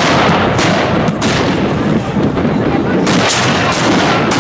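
Black-powder musket fire from many muskets, a dense rolling crackle of overlapping shots with several louder, sharper reports standing out.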